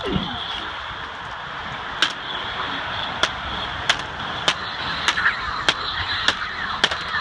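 Toy lightsabers clashing in a duel: about nine sharp strikes from about two seconds in, roughly half a second to a second apart, over a steady high hum.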